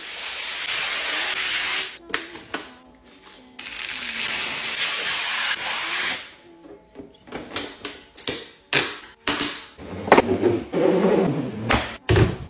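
Two long, even hiss-like noises of a few seconds each, then a quick run of clicks and knocks from plastic parts of a new LG Styler being handled, over background music.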